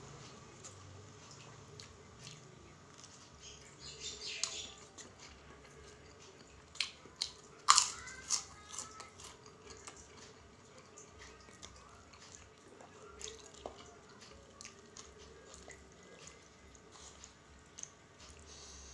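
A person chewing rice cake and tofu in peanut sauce, with scattered sharp clicks and taps of a spoon against a styrofoam food box. A cluster of taps comes about four seconds in, and the loudest click comes about eight seconds in.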